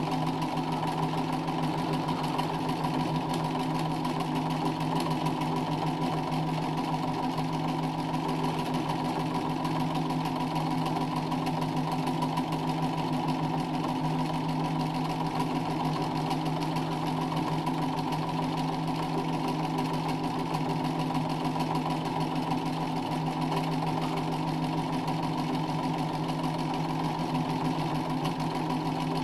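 Domestic sewing machine running steadily at speed without a break, its needle stitching free-motion embroidery through fabric held in a hoop under a darning foot.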